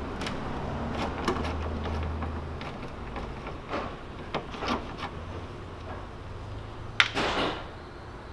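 Scattered light clicks, taps and scrapes as the screws holding a Mercedes-Benz W211's plastic front grille are undone with a hand tool, with a sharp click about seven seconds in followed by a brief scrape.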